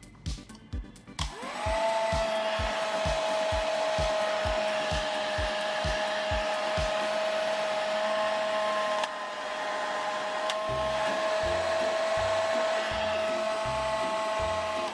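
Small electric motor of a mini toy home appliance whirring: it spins up quickly about a second in, then holds a steady high whine that cuts off abruptly near the end.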